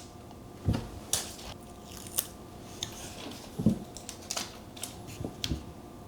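Handling noise from a small handheld camera being picked up and worked: about half a dozen irregular light clicks and taps with a few soft thumps.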